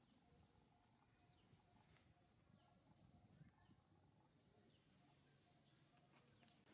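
Near silence: faint outdoor ambience with a steady high-pitched tone and a few faint short chirps.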